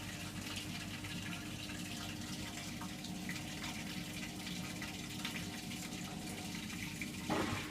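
Hotpoint washing machine draining ahead of its final spin: a steady drain-pump hum with water running out of the drum.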